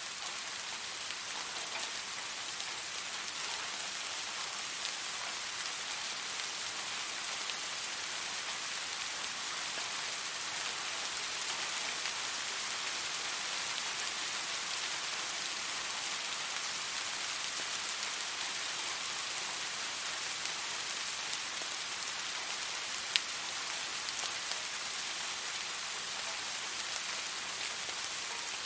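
Steady rain falling, an even hiss of drops, with one sharp drop or tick about 23 seconds in.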